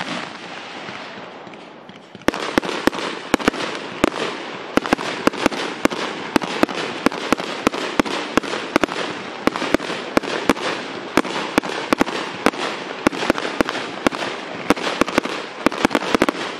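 Fireworks: a bang with a fading crackle, then from about two seconds in a dense, irregular barrage of sharp bangs, several a second, over continuous crackling, trailing off near the end.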